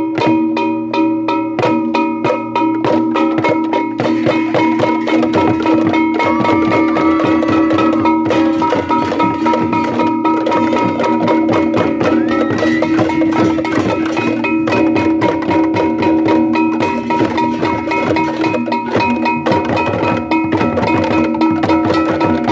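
Balinese tektekan ensemble: many bamboo slit drums struck in a fast, dense clattering rhythm over steady ringing tones.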